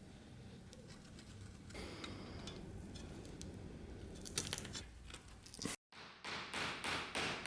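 Handwork on the knife at the bench: a few light clicks and knocks, then, after a brief cut-out, a run of five rhythmic scraping strokes, about three a second.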